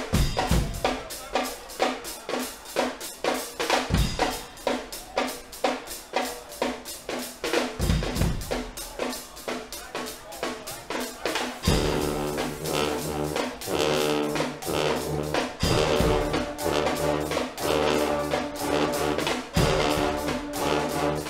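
Guggenmusik band playing: the drum section (snare and bass drum) beats a steady rhythm alone, then loud brass chords with trombones come in about halfway through, over the drums.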